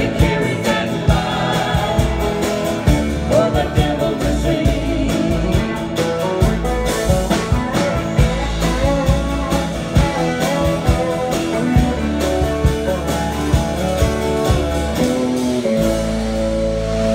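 Live country band playing a duet song: strummed acoustic guitars, upright bass and drums under a woman's and a man's singing. Near the end the singing stops and the band holds a ringing chord.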